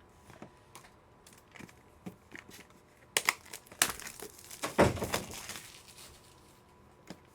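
Plastic packaging crinkling and tearing as a trading-card pack or box is opened, with a few small clicks of handling first and the loudest tearing about five seconds in.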